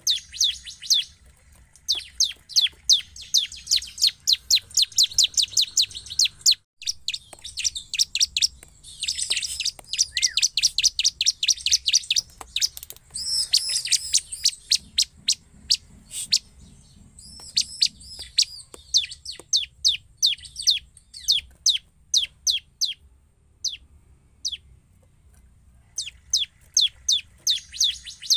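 Bar-winged prinia (ciblek) singing in full song: long runs of sharp, high chips repeated about four to five a second, broken by short pauses. A few slurred, rising-and-falling notes come in the middle.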